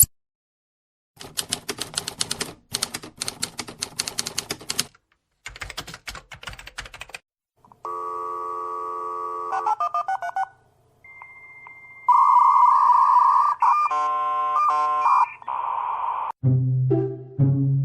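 A run of short stock sound effects. First comes rapid, irregular mechanical clacking like typewriter keys. Then steady electronic telephone-style tones and beeps, and near the end a short musical jingle.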